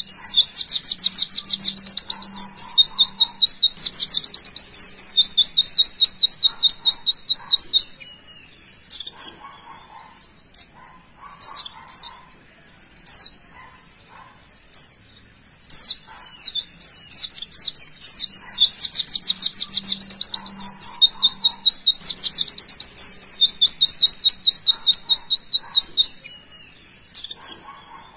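White-eye (pleci) singing its 'tembakan' song: long runs of rapid, high trills. A stretch of scattered short chirps comes in the middle, and then the trilling resumes.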